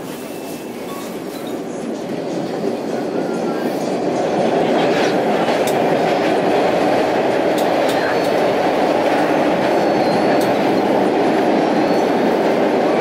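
Running noise inside an MBTA Orange Line subway car, heard from inside the car. The rumble of wheels on rail grows louder over the first few seconds as the train picks up speed, then holds steady and loud, with faint clicks now and then.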